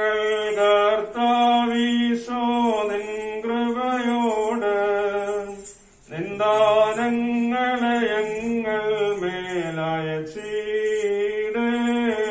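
Voices singing a slow Malayalam hymn in drawn-out, chant-like phrases, with a short break between phrases about six seconds in.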